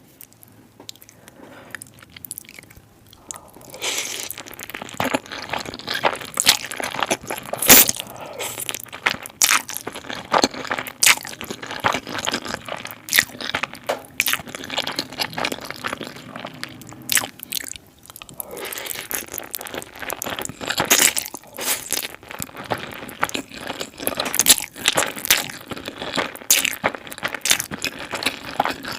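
Close-miked eating sounds of someone eating spaghetti: chewing with many sharp, crisp mouth clicks. It is quieter for the first few seconds and pauses briefly about two-thirds of the way through.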